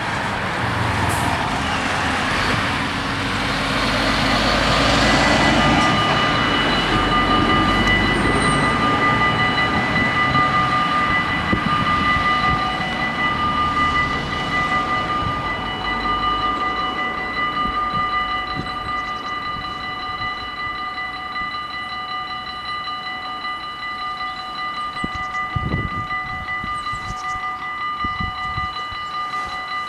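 A lorry passes with a rumble. Then, about seven seconds in, the level crossing's warning bells start and keep up a steady, rapid ringing while the half-barriers lower. A short knock comes near the end.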